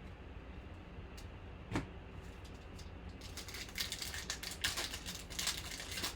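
A trading-card pack being opened and handled: a single click, then a couple of seconds of crisp crinkling and rustling of the foil wrapper and the cards.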